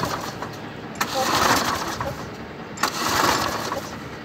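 Hayter petrol lawnmower being pull-started by its recoil cord, a pull about every two seconds: each begins with a sharp snap and a whirr of the engine turning over, then fades away because the engine does not catch.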